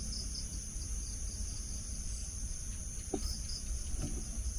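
Night insects, crickets, trilling in a steady high continuous chorus, with a pulsing chirp joining briefly near the start and again after about three seconds, over a low rumble.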